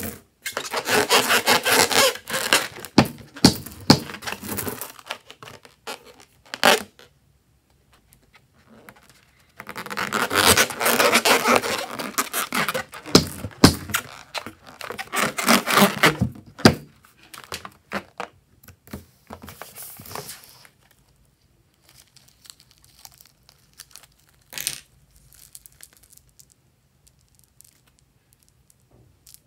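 Hands rubbing and squeezing a water-filled rubber balloon, a scratchy rubbing sound in two long stretches, with a few sharp clicks and quieter handling later.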